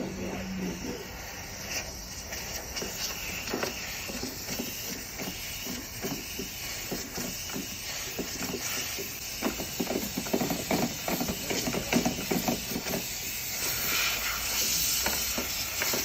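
Steady rush of air hissing through a dryer vent line, with a stretch of rapid rattling and knocking in the middle, loudest near the end of that stretch. The vent runs with much better airflow now that the blocked, wet lint is being cleared.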